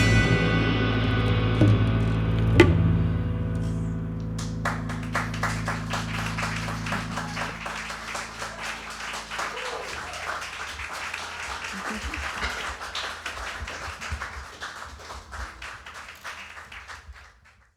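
A jazz band's last chord ringing out and dying away, with a sharp drum or cymbal accent about two and a half seconds in. Audience applause then takes over and fades out near the end.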